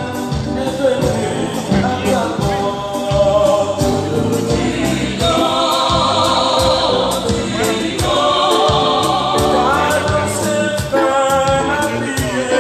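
A small choir singing with electronic keyboard accompaniment over a steady beat.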